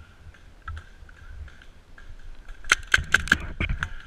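Paintball markers firing: a quick run of sharp pops, about eight in little more than a second, starting about two and a half seconds in.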